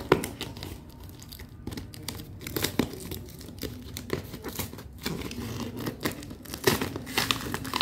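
Snap-off utility knife slicing through packing tape and cardboard on a parcel, with irregular tearing, scraping and crinkling of tape and box flaps.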